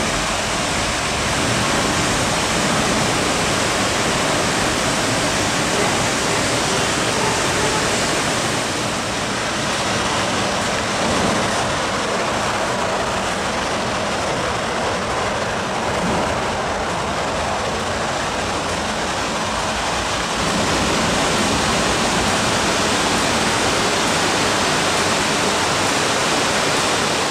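MTR engineering train running through an underground station behind the platform screen doors: a steady, loud rushing rumble that holds throughout with only small swells.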